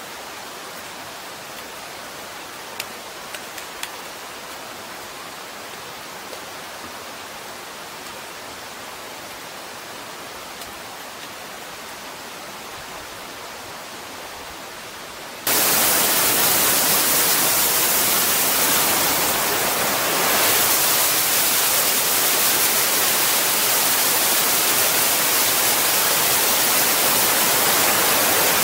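Steady rush of a creek's flowing water, with a few light clicks in the first few seconds. About halfway through it switches abruptly to a much louder, full rush of water pouring over a stepped rock cascade close by.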